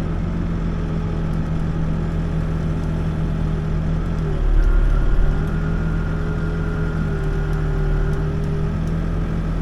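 Backhoe's diesel engine running steadily, heard from the operator's seat, with its pitch dipping about four seconds in and a brief louder low surge just after, as the machine takes load. A faint thin high whine runs for a few seconds after the surge.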